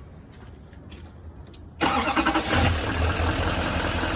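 Truck engine starting about two seconds in, then settling into a steady idle, running to feed the camper's dead battery through jumper cables.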